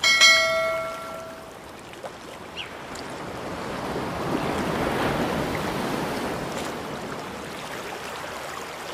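A click followed by a bright bell-like chime that rings for about a second and a half, the sound effect of a subscribe-button notification bell. Then a soft rushing whoosh swells through the middle and fades back down.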